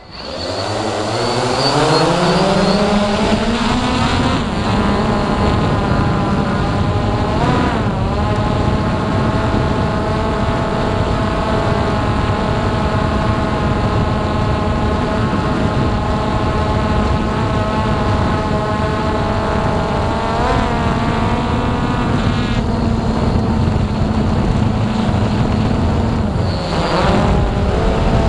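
Hubsan X4 Pro H109s quadcopter's four electric motors and propellers spinning up from rest, the whine rising in pitch over the first few seconds as it lifts off. It then settles into a steady, loud buzzing whine in flight, with a few brief swings in pitch as it manoeuvres. Heard close up through the drone's own onboard camera.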